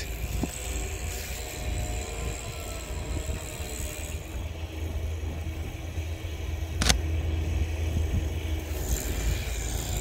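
Compact tractor's engine running steadily while it clears snow, heard as a low rumble with a faint hum over it. A single camera shutter click about seven seconds in.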